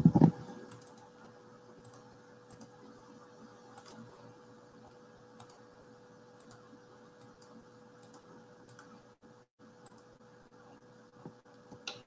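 A loud low thump right at the start, then faint scattered clicks of a computer mouse and keyboard over a steady faint electrical hum.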